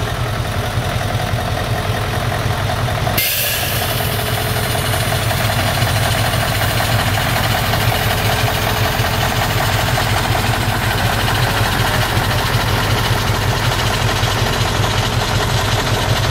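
Large diesel engine idling steadily.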